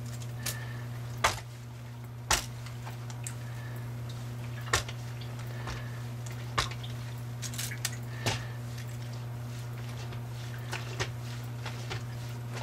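Brass clock movement being swished and turned by hand in soapy water in a sink, with squishy sloshing and about half a dozen sharp clicks as the metal works knock against the sink, over a steady low hum.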